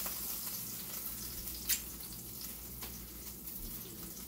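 Food sizzling softly in a cast-iron skillet, a steady hiss. There is a sharp click about one and a half seconds in and a fainter one near three seconds.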